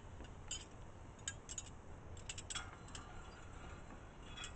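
Faint, scattered light clicks and clinks, a dozen or so, irregularly spaced, as small metal hardware and tools are handled.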